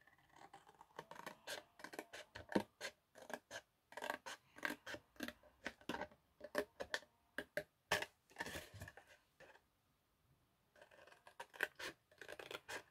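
Small scissors snipping through cardstock in short, irregular cuts, with a pause of about a second near the end before the snipping starts again.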